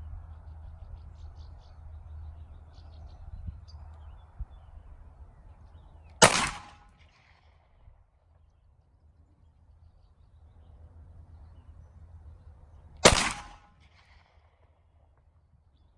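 Two single shots from a Glock 43X 9mm pistol, about seven seconds apart, each a sharp crack with a short echo.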